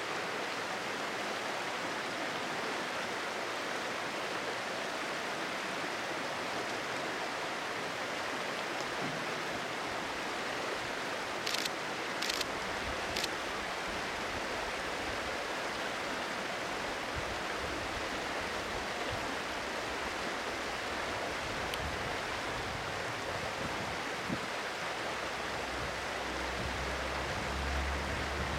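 Steady rushing of a stream. A low rumble from a KiHa 120 diesel railcar builds in the second half as it approaches, and there are three short clicks about twelve seconds in.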